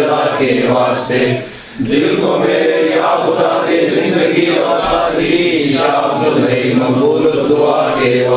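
Male voices chanting a prayer of supplication (dua), with a short break for breath about a second and a half in.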